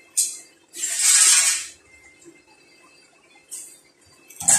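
Steel tools and bar stock handled: a short metallic clink, a scrape lasting about a second, another faint clink, and a louder clank near the end.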